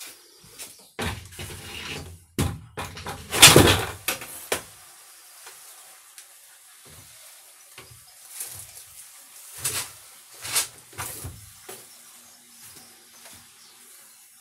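A plastic bucket knocking and scraping against the wooden ceiling boards and a papery hornet nest as it is pushed up over the nest. The loudest scrape comes about three and a half seconds in, and a few shorter scrapes and knocks follow later.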